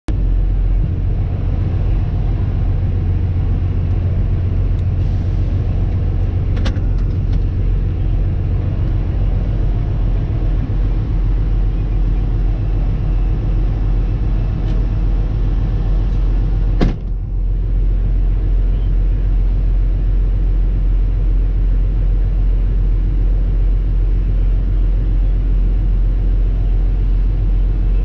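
Concrete mixer truck's diesel engine idling steadily, a low, even hum heard from inside the cab. A sharp bang about seventeen seconds in, after which the sound is a little duller.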